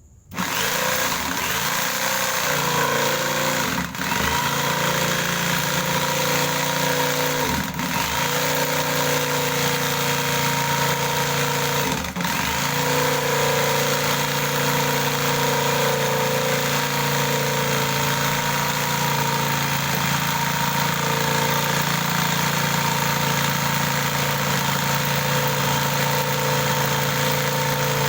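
Electric jigsaw set to speed 5, running and sawing through a thick piece of wood with a steady motor-and-blade noise. It starts suddenly, and the noise dips briefly three times in the first half.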